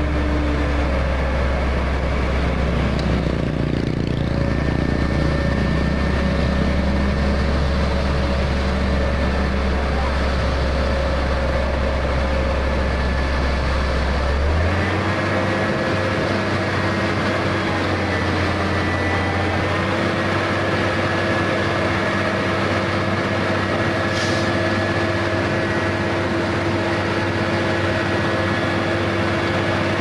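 Concrete mixer truck's diesel engine running steadily as the drum turns and discharges concrete down the chute. About halfway through, the engine speed steps up and holds at a higher, steady pitch.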